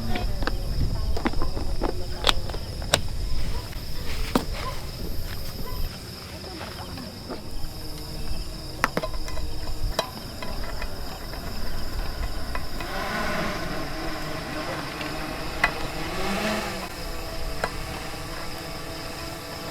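Insects chirring in one steady high-pitched drone, with scattered sharp clicks and knocks, and a muffled pitched sound in the background a little after the middle.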